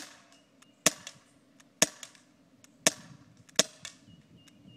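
Colt Defender 1911 CO2 BB pistol firing five shots, about one a second, each a sharp crack, with fainter ticks between some of the shots.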